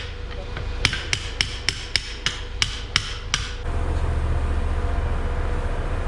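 A quick run of about ten sharp taps, three or four a second, like hammer blows on metal. A steady low hum starts about three and a half seconds in.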